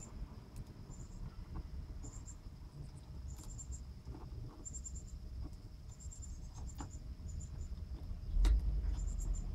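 A cricket chirping in short high-pitched chirps, each a quick run of pulses, repeating every second or so. Faint clicks and taps come from hands working plastic fuel-sender connector parts, with a louder knock about eight and a half seconds in.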